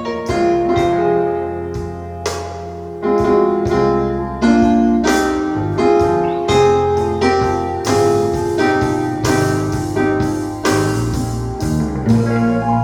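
Instrumental break in a song: a piano plays a solo of struck notes and chords over a steady bass line, with no singing.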